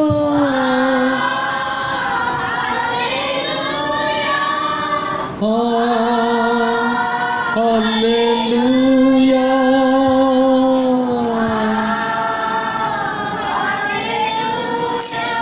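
Slow Christian worship song sung by one voice, holding long, slightly wavering notes in phrases of several seconds, with a short break about five seconds in.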